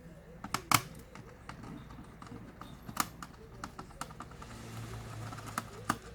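Irregular small clicks and taps of plastic and metal laptop parts and tools being handled during disassembly, the loudest a little under a second in.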